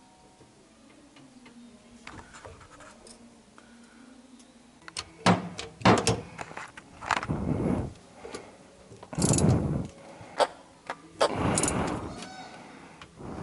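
Ratchet wrench with an extension bar working on a Chevette's rear axle differential. After a few quiet seconds come sharp metal clicks and about five short rasping bursts, each under a second.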